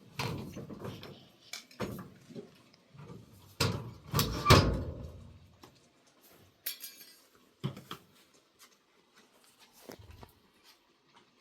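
Irregular knocks and clatter of things being handled, with the loudest thump about four and a half seconds in.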